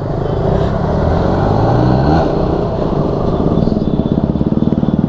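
Motorcycle engine running, rising in pitch about a second in as it speeds up, then holding steady with a fast, even pulsing.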